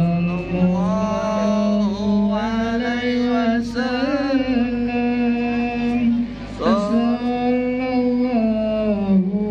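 A solo voice singing shalawat, the Islamic devotional chant in praise of the Prophet Muhammad, in long held notes that glide and waver up and down, with a short pause for breath about six and a half seconds in before the next phrase.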